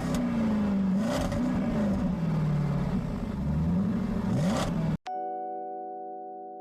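A vehicle driving under power, a loud noisy rush with a drone that rises and falls in pitch. It cuts off suddenly about five seconds in, giving way to a sustained electric piano chord.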